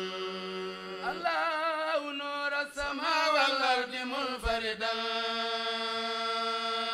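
A group of men chanting a Mouride khassida, an Arabic devotional poem, on a drawn-out vowel between verse lines. A long held note rises about a second in into a wavering, ornamented melodic line, then settles onto another long held note.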